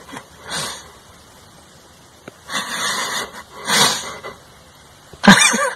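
A few short, breathy huffs of breath, each about half a second long, with quiet between them. A louder, wavering sound with a pitch comes near the end.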